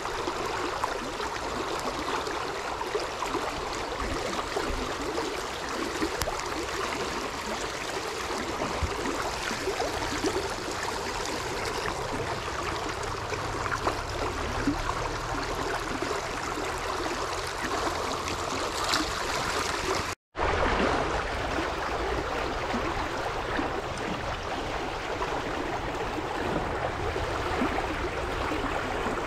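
Small river flowing: a steady rush of running water. It cuts out for an instant about two-thirds of the way through, then carries on unchanged.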